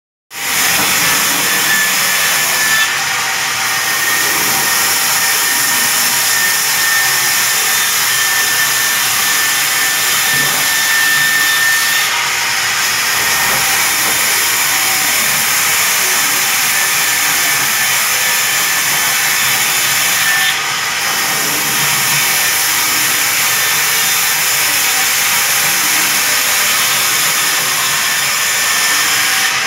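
Vertical band saw running and cutting sal wood planks: a loud, steady hiss, with a thin whine over the first twelve seconds or so and a few brief dips in level.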